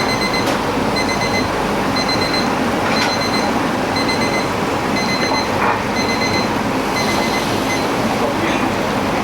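An electronic alarm beeps in a steady pattern at one high pitch, about once a second, over a loud, steady rushing background noise.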